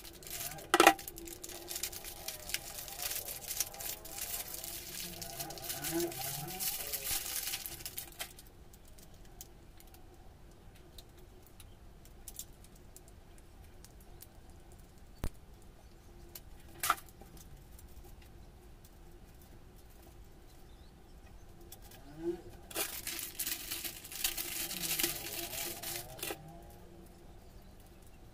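Clear plastic packaging crinkling and rustling as an adhesive soap holder is unwrapped and handled, in two stretches with a few sharp clicks and taps in between.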